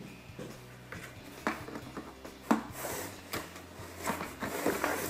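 Cardboard and plastic toy packaging being handled and worked open: scattered clicks and knocks, growing into busier crinkling and rustling near the end.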